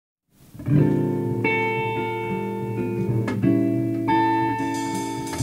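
Jazz guitar playing a slow intro of sustained chords, a new chord every second or two, with a faint click a little past the middle.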